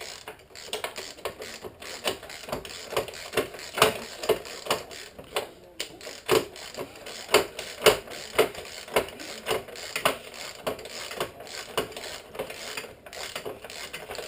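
Socket ratchet wrench with an extension clicking as it runs a bolt on a motorcycle kickstand mount: a steady series of sharp clicks, about two or three a second.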